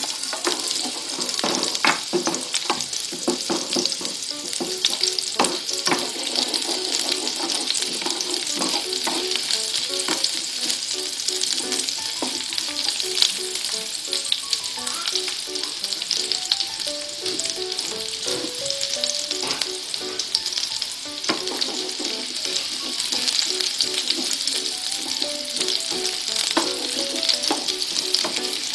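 Food sizzling as it fries in hot oil in a pan: a steady, dense sizzle, with scattered clicks and taps of a utensil stirring against the pan.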